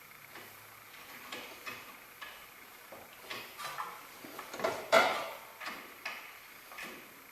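Irregular metallic clicks and clinks of hand tools and parts being handled during work on a car's front wheel hub, about a dozen knocks with the loudest about five seconds in.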